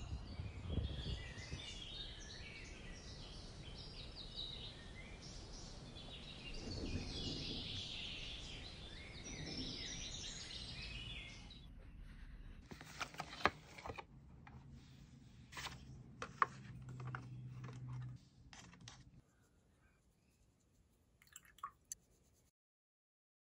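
Birds chirping over outdoor background noise. After a cut about eleven seconds in come the sharp clicks and rustles of hands handling a cardboard box of watercolour paints. It ends very quiet, with a couple of faint taps near the end.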